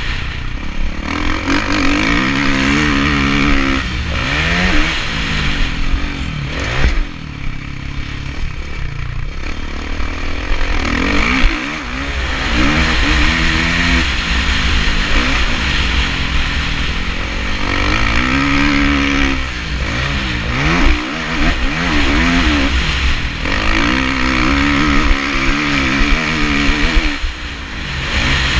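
Kawasaki KX450F motocross bike's single-cylinder four-stroke engine under hard riding: the revs climb again and again as it pulls through the gears, then drop each time the throttle is chopped, several times over. Heard from a helmet-mounted camera.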